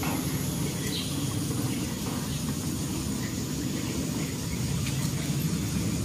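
Steady low rumbling background noise with a faint high steady tone over it, and no clear single event.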